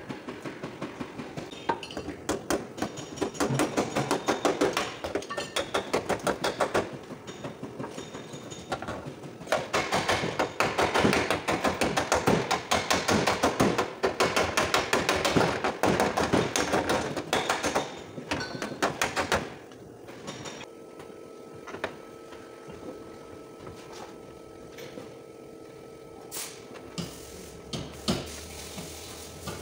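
Welding on the car's steel rear body panel: a dense, rapid crackle in long runs, pausing briefly about seven seconds in and stopping abruptly a little past halfway. A few scattered knocks over a faint steady hum follow.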